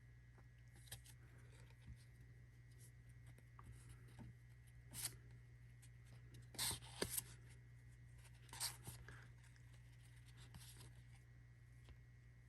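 Faint handling of cardboard trading cards being slid and flipped through one by one, with a few short soft scrapes in the middle, over a low steady hum.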